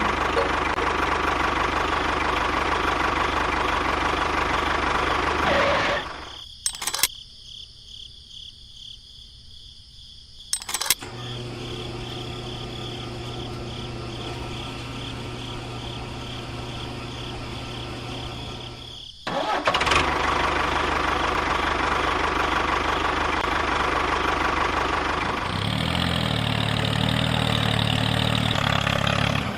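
Small engine of a miniature model construction vehicle running, in several abruptly cut stretches. The sound drops much quieter about six seconds in, becomes a steady low hum from about eleven seconds, and is loud again from about nineteen seconds.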